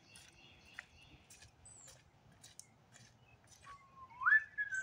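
Footsteps crunching on gravel as light scattered clicks, then a clear whistle near the end that rises and wavers in a short tune.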